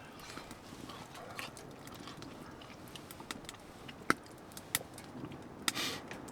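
A person chewing a mouthful of food, with scattered sharp clicks and ticks, one loud click about four seconds in and a few more near the end.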